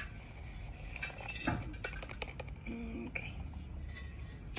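A thin plastic nursery pot being handled and knocked as a succulent's root ball is slid out of it: a few scattered light clicks and knocks, bunched about a second and a half in.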